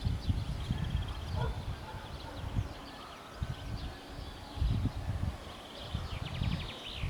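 Small birds chirping, with a quick trill near the end, over irregular low gusts of wind buffeting the microphone.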